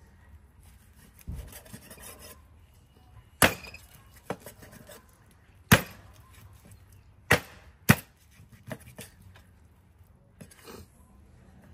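Cleaver chopping through raw chicken: four sharp chops, the last two close together, with quieter knife cuts and scraping between them.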